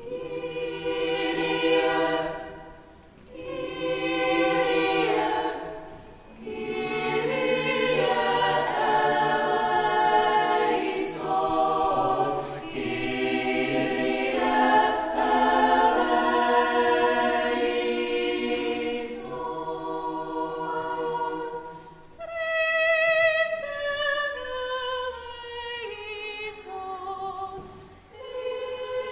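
Choir singing in a church, several sung phrases with short breaks between them.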